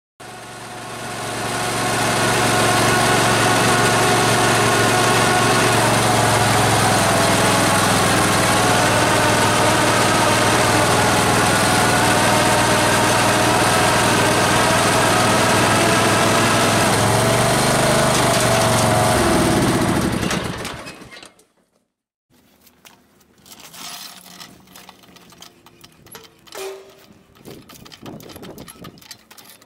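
Lawn tractor engine running steadily, then slowing and stopping about 20 seconds in. Quiet scattered clicks and knocks follow.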